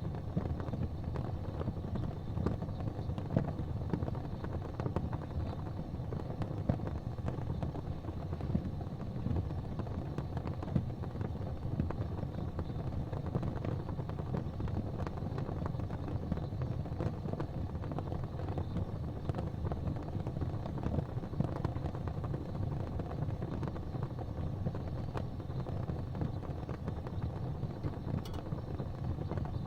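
Gas fireplace flames burning: a steady low rumble with small crackles scattered throughout.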